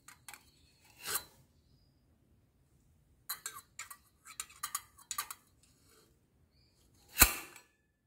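Stainless steel feeding bowl being handled in its wire ring holder on a parrot cage: light metal clinks and scrapes, a quick run of clinks in the middle, and one sharp, louder metallic clank with a brief ring near the end as the bowl is set back into the ring.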